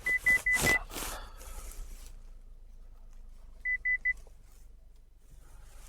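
Electronic beeps, a single high pitch: a quick run of short beeps right at the start, then three more about four seconds in. A brief hissy noise follows the first run.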